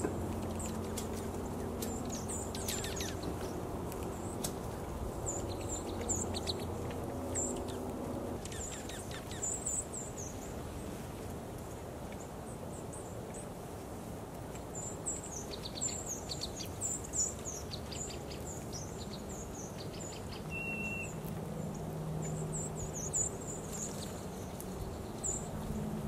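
Dark-eyed juncos foraging on snow give short, very high chip notes, scattered singly and in quick clusters. A low steady hum lies underneath for the first third and again near the end.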